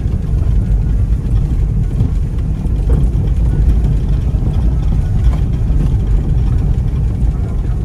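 A car driving along a rough dirt lane, heard from inside the cabin: a steady low rumble of engine and tyres on the unpaved surface, with a couple of faint knocks from the bumpy road.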